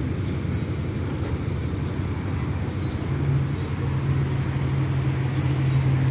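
A train's diesel engine running with a low, steady drone; a deeper hum grows stronger about three seconds in.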